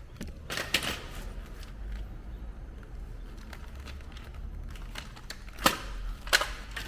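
Hard plastic clicks and knocks from used Dyson cordless vacuum cleaners being handled: one about a second in and two sharper ones near the end.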